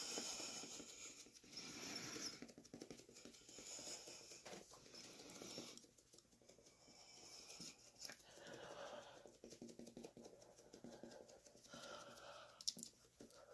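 Near silence: faint, soft pattering and rustling with a few light clicks, the sound of someone handling things close by.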